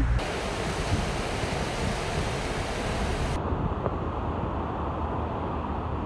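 Steady wash of sea waves breaking against the rocks of a seawall, mixed with wind on the microphone. The high hiss drops away suddenly about three and a half seconds in, leaving a duller sound.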